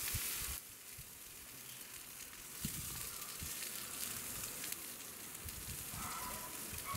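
Steaks sizzling and crackling on a wire grill over charcoal, the hiss loudest for the first half second. A few soft knocks come as metal tongs move the meat.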